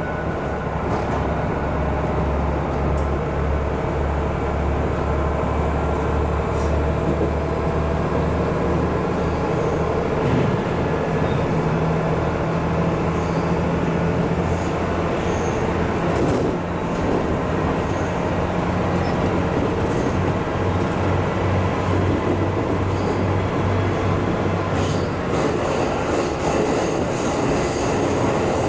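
KiHa 200 series diesel railcar running, heard from the cab: a steady low engine drone under the rumble and clicking of wheels on the rails. The engine note changes about ten seconds in and drops away near the end.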